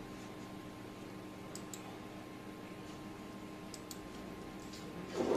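Quiet room tone with a steady electrical hum, broken by a few faint, scattered clicks at a computer. A brief louder low sound comes right at the end.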